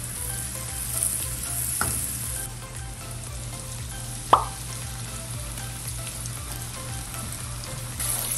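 Butter with chopped onion and garlic sizzling in a wok over low heat, stirred with a wooden spatula. A single sharp knock comes about four seconds in, as sauce is poured into the pan.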